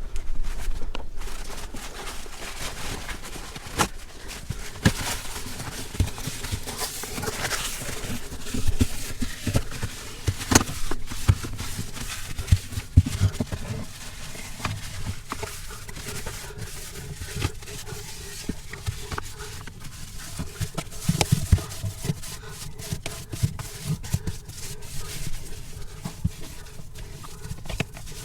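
Plastic fridge trays being wiped dry and handled: rubbing with many scattered knocks and clicks.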